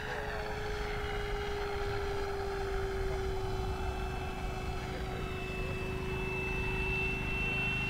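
Electric FMS F4U Corsair RC model in flight: its brushless motor and four-bladed propeller give a steady whine whose pitch sinks slightly over the first few seconds as it passes, then holds, over a low background rumble.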